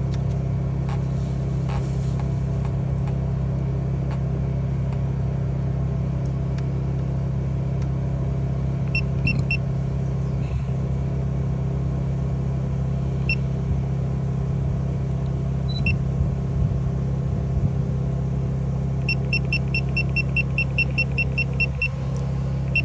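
Steady low engine hum, like an idling vehicle. Short high electronic beeps sound over it: a few single ones around the middle, then a quick run of about a dozen, some four a second, near the end.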